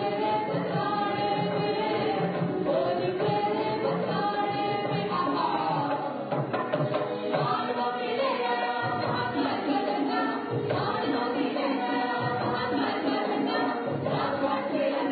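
Folk dance music: voices singing together over a steady beat.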